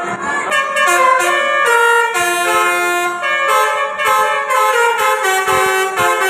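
Telolet horn on an Indonesian bus: a set of tuned horn trumpets playing a melody. Several tones sound together and step up and down from note to note, with a few very short breaks between phrases.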